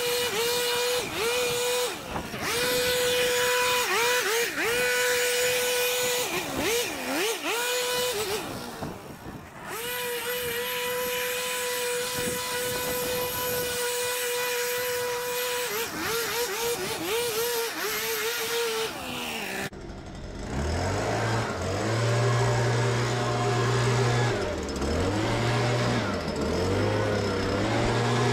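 Handheld leaf blower running at full power, its steady whine dipping briefly several times as the trigger is eased. About two-thirds of the way in the sound switches to a lower-pitched Stihl handheld blower engine, also running steadily with a couple of short dips.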